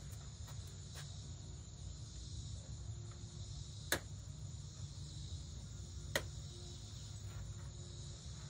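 Two sharp clicks about two seconds apart: magnetic decorative garage door hardware snapping onto the metal door. Crickets chirp steadily in the background throughout.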